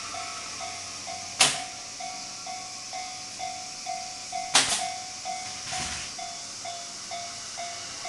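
Japanese railway level-crossing alarm ringing, an electronic clang repeating about twice a second while the crossing is closed for a train. Sharp loud knocks come about a second and a half, four and a half and six seconds in.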